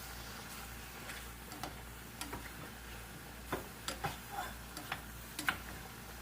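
Light, irregularly spaced clicks and taps of kitchen utensils and containers being handled, coming more often in the second half.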